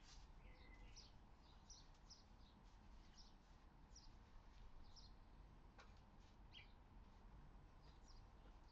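Near silence with faint birds chirping: short high chirps every half second or so over quiet room tone.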